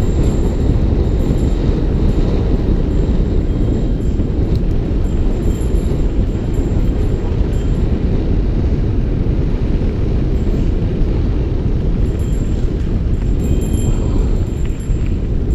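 Steady, loud rumble of a mountain bike riding fast down a dirt trail, with wind buffeting the action camera's microphone and tyres rolling over the packed dirt.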